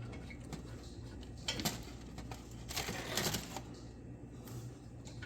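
Light metallic clicks and a short scraping rattle from a loosened brake caliper bolt being worked out by hand and the caliper handled. The clicks come about a second and a half in, and the scrape about three seconds in.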